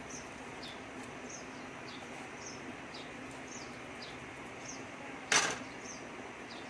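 A small bird chirping over and over, short high falling chirps about two a second, over a steady hiss. A brief loud clatter about five seconds in.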